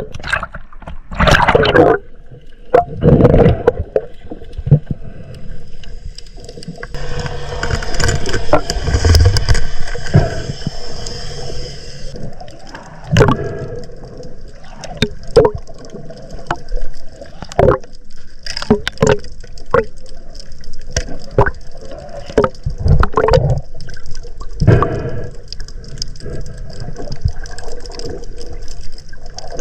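Water gurgling and sloshing close to the microphone in irregular surges, with scattered sharp clicks and knocks.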